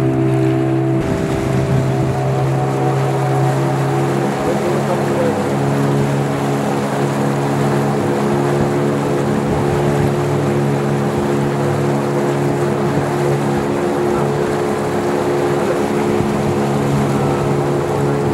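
Small motorboat's engine running steadily, a low drone with a slight change in pitch about a second in, over a continuous rush of wind and water.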